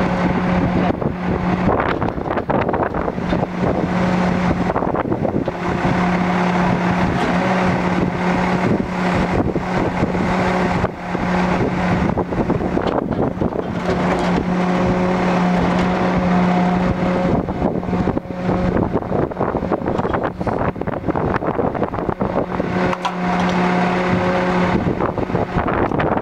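Semi tractor's diesel engine running steadily while the hydraulic gooseneck of a detachable lowboy trailer is being worked. A steady hum comes and goes several times over the engine noise.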